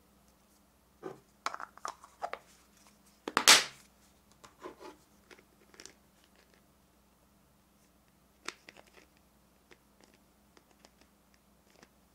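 Hard plastic capsule halves, moulded as a ball of yarn, clicking and tapping as they are handled. The loudest, a sharp snap about three and a half seconds in, comes as the two halves are pressed shut. Lighter taps and another click follow as the closed ball is turned over.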